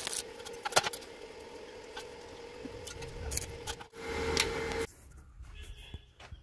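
Stick arc welding on steel square tubing: a steady crackle with sharp snaps for the first few seconds. Then an inverter arc-welding machine hums close up and stops abruptly about five seconds in.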